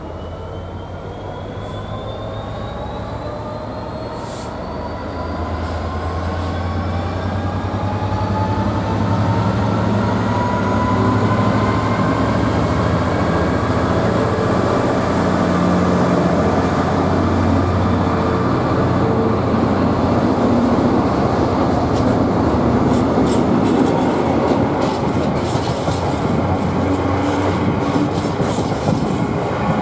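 A train accelerating: a whine rises steadily in pitch and the low drone grows louder over the first ten seconds or so, then holds. In the last several seconds the wheels click over rail joints.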